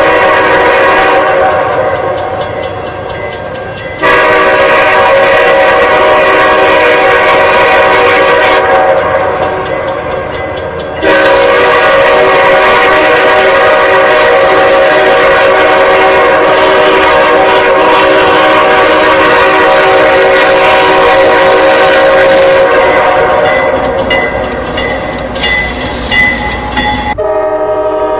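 Locomotive air horn sounding long chord blasts: one at the start, another from about four seconds in, and a long one from about eleven seconds that holds for some twelve seconds, each fading away. Near the end come a few sharp knocks, then the horn continues in a duller-sounding recording.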